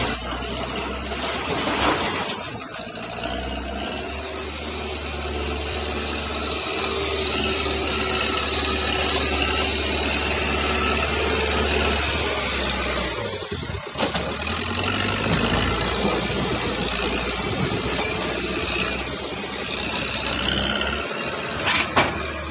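Backhoe loader's diesel engine running with a steady low drone, the sound dropping briefly about two-thirds of the way through. A couple of sharp knocks near the end.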